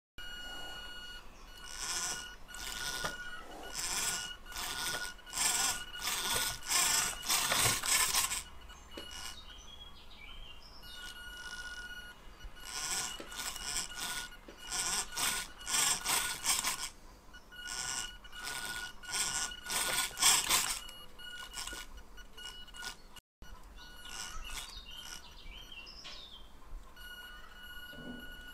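Two-wheeled balancing robot's small geared DC motors whirring in quick back-and-forth bursts as the robot oscillates, trying to stay upright on only rough P-gain tuning. A thin steady high tone sounds between the bursts, and the bursts thin out in the last few seconds.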